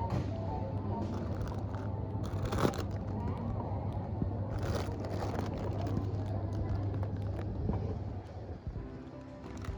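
Supermarket background: a steady low hum with scattered clicks and a few short rustling bursts, with faint voices in the background.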